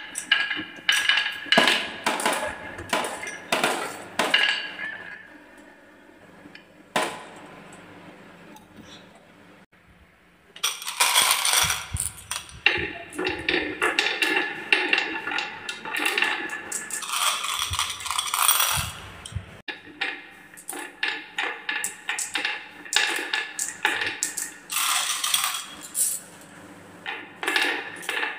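Glass marbles rolling and clattering down zigzag wooden tracks, clicking against the wood and against each other, and dropping into a plastic toy truck's bin. Runs of rapid clicks and knocks, a quieter stretch from about five to ten seconds in with a single knock, then dense clatter again.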